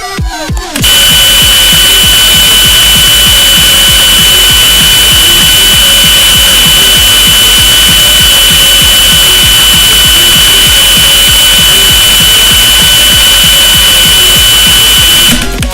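Emergency alert system alarm: a loud, steady, high-pitched tone buried in harsh static. It starts abruptly about a second in and cuts off abruptly just before the end.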